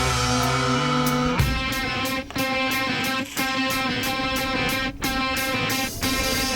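Soundtrack music: a guitar-led passage with plucked and strummed electric guitar, dropping out for a moment three times.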